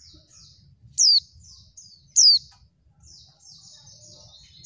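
Female white-eye (pleci) calling: two loud, sharp calls that sweep down in pitch, about a second and about two seconds in, with soft high twittering chatter between and after them.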